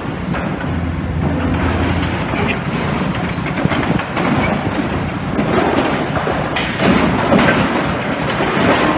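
Demolition excavator's diesel engine running under load while it breaks up a building, with rubble and metal crunching and falling, heavier crashes in the second half.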